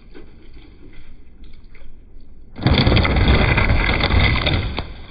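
Wind gusting on the microphone: a loud, even rushing noise that starts suddenly about two and a half seconds in and dies away about two seconds later, over a quieter outdoor background.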